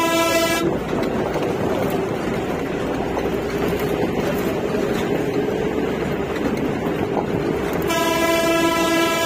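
Engine and road noise of a moving Uttarakhand Roadways bus, heard from inside, with a single-note horn sounding briefly at the start and again in a longer blast near the end.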